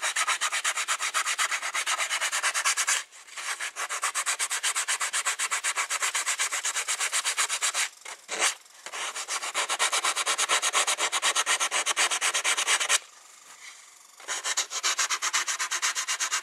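100-grit sandpaper rubbed by hand along a soft cedar board in quick back-and-forth strokes, with short breaks about three, eight and thirteen seconds in.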